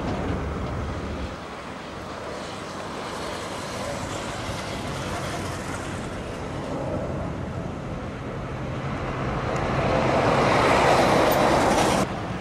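Jet engine noise from an Airbus A320-family airliner climbing out after takeoff: a steady rushing rumble that eases a little early on, swells to its loudest about ten seconds in, then drops abruptly near the end.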